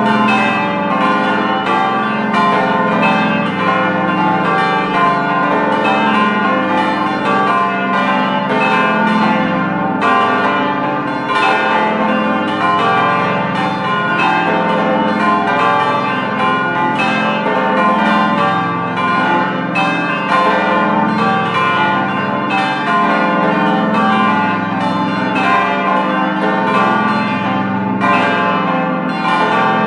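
The eight church bells of a bell gate, ranging from 220 kg to 2800 kg, ringing together in a continuous peal. Bells of many different pitches strike in quick succession and overlap, with no pause.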